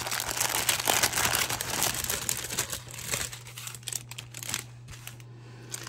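Clear plastic packaging bags crinkling and rustling as they are handled. The crinkling is dense for about the first three seconds, then dies down to a few faint rustles.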